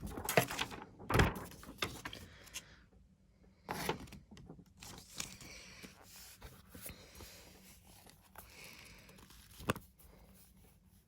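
Paper and card album inserts being handled: rustling and shuffling, with a few sharp knocks as pieces are picked up and set down.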